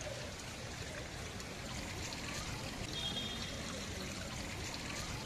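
Steady rushing, water-like ambience, with a brief high tone about three seconds in.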